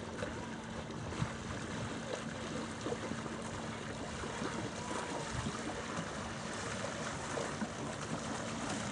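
Water lapping and gurgling against a boat's hull, over a steady low hum.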